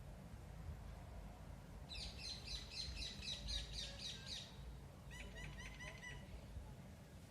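A small songbird singing two short phrases of quickly repeated high chirps, one about two seconds in and another about five seconds in, faint against a low background hum.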